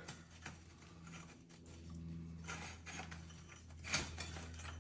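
Light clinks and knocks of undercarriage rollers from a skid steer being handled and checked for play, the loudest knock about four seconds in, over a steady low hum that grows a little louder partway through.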